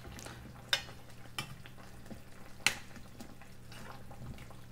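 A utensil clinking a few times against a pan as fried balushahi are turned in hot sugar syrup, over a faint sizzle from the syrup and a low steady hum.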